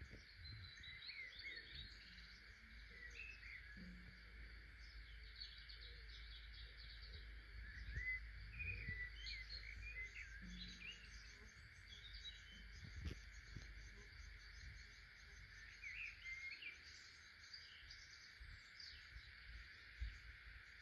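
Faint outdoor ambience: small birds chirping and twittering on and off over a steady high hiss, with a low rumble underneath.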